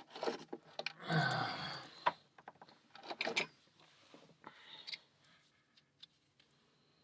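Handling noises from a brass padlock and small metal tools: a run of clicks and scrapes, with a longer rattling stretch about a second in and smaller clusters of clicks later, dying away near the end.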